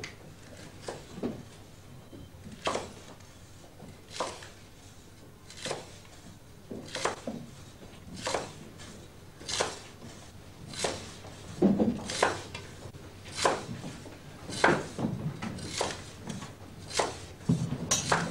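Kitchen knives chopping on wooden chopping boards: single sharp strikes about every second and a half, coming closer together in the last few seconds.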